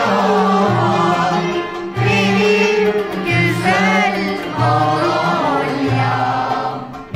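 Live music: a woman singing a melody with wide vibrato, backed by a choir and instrumental ensemble over a repeating low bass pattern.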